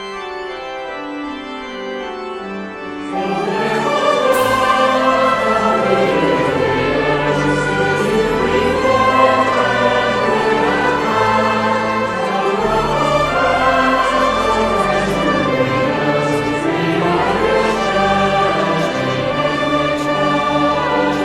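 Choral music: a choir singing with instrumental accompaniment. It opens on soft held chords and swells fuller about three seconds in.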